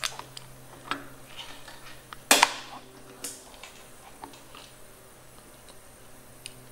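Small metal clicks and clinks as two M6 bolts are handled and started by hand to fix a hydraulic slave cylinder to a transmission adapter plate, with one sharp, louder metal clack a little over two seconds in.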